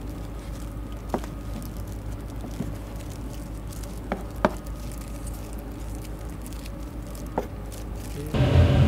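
Restaurant kitchen background: a steady low hum with a few sharp, light clicks and taps, then a much louder low rumble starts abruptly near the end.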